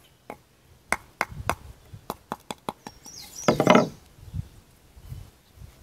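A run of light knocks and taps of a paracord whip's heel knot against a small wooden board, about ten in three seconds, followed by a louder burst of handling noise about three and a half seconds in.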